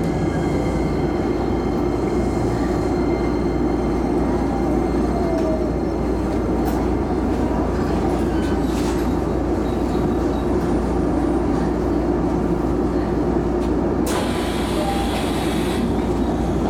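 Shizuoka Railway A3000 series electric train heard from inside its cab: a steady low hum and rumble, with a faint whine falling in pitch in the first few seconds as the train slows to a stop. Near the end comes about two seconds of hissing air.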